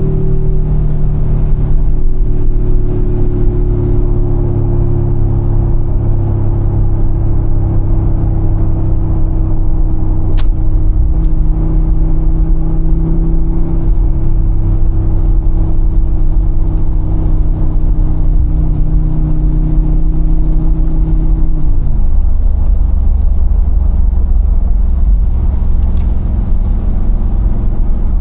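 Mercedes-AMG G63's 4.0-litre twin-turbo V8 pulling at steady revs with a deep rumble, its pitch sagging slowly. About three quarters of the way through the revs drop sharply and it settles into a lower drone.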